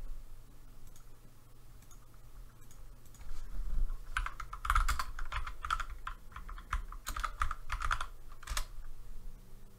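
Typing on a computer keyboard. A quick run of keystrokes starts about four seconds in and ends with a last single key press near the end, the length of a short command being entered.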